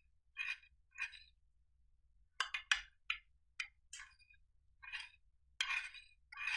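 Metal spoon stirring thick slime in a glass baking dish: a series of separate wet, sticky strokes, with the spoon clinking sharply against the glass a few times about two and a half seconds in.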